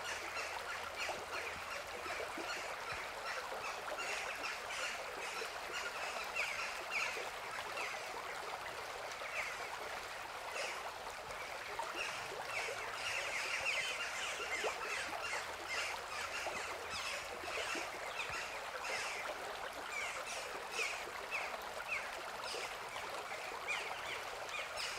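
A river flowing with a steady rush, while birds call over it with many short, repeated calls that grow busier about halfway through.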